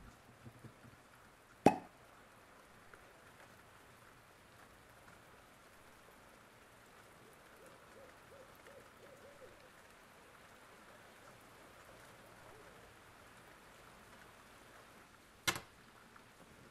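Two sharp, loud clicks over quiet room tone, one about two seconds in and one near the end, from handling a Zippo lighter or the tools working on it.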